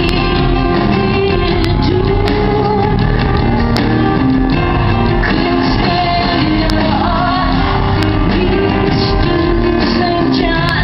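A live rock band playing, with a woman singing lead over keyboards, bass and drums, recorded from the audience in a large reverberant hall. The recording is loud and dull-toned.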